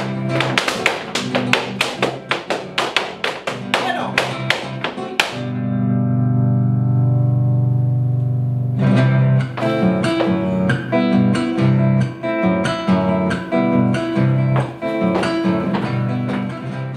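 Malambo accompaniment on guitar: fast, sharply struck rhythmic strumming, broken about five seconds in by a long held chord lasting about three and a half seconds, after which the driving rhythm resumes.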